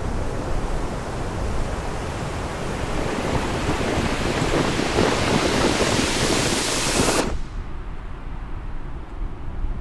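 A rushing noise swells and grows brighter over several seconds, then cuts off abruptly about seven seconds in. After the cut only a faint low rumble remains.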